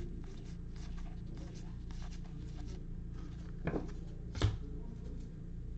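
Paper trading cards being flicked through one by one by a gloved hand: soft sliding and flicking of card stock, with two louder snaps a little past halfway, over a steady low hum.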